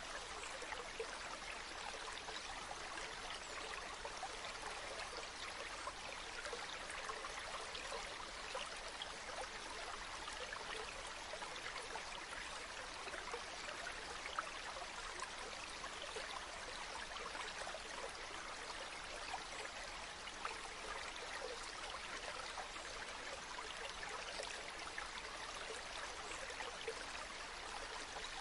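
Water flowing steadily in a stream, a continuous splashing and trickling hiss with many small droplet sounds, even in level throughout.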